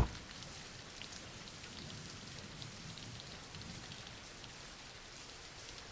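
Steady soft rain falling, with faint scattered drops ticking.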